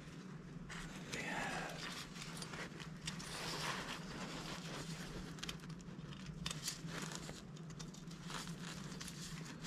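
Faint irregular rustling, scraping and light clicks, like parts being handled, over a steady low hum.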